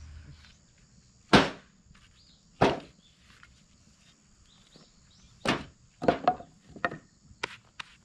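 Softwood firewood blocks being dropped one at a time into a wheelbarrow, each landing with a sharp wooden knock. There are single knocks at about one second and again just under three seconds in, another at about five and a half seconds, then a quicker run of several knocks near the end.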